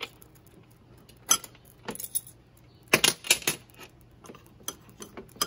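A spoon clinking and scraping against a pan as almond flour is added and stirred into a crust mix: a scatter of sharp clinks, with the loudest cluster about three seconds in.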